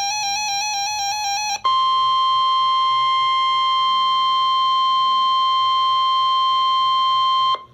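Emergency alert broadcast: about a second and a half of rapidly warbling digital data tones (the tail of the alert's coded header), then a single steady, high-pitched alarm tone, the Weather Radio warning alarm, held for about six seconds before it cuts off sharply.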